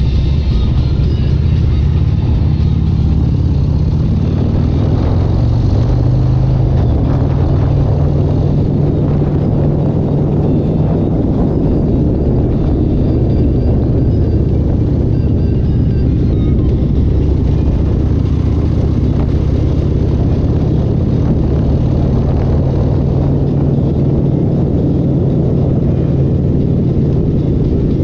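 A car engine running loudly at a fairly steady speed, its pitch drifting slowly up and down.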